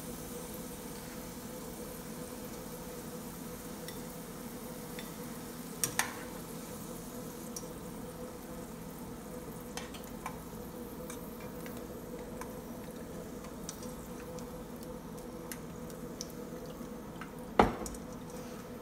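Hot oil sizzling quietly in a frying pan as fried onions are lifted out with a wire-mesh skimmer, over a steady hum. The metal skimmer clicks against the pan twice about six seconds in and once, loudest, near the end.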